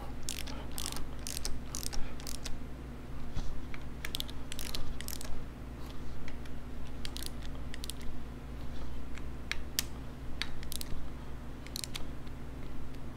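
Ratchet wrench clicking in short runs with pauses between them, snugging down the Sportster rocker box cover bolts a little at a time as the cover gaskets squish down.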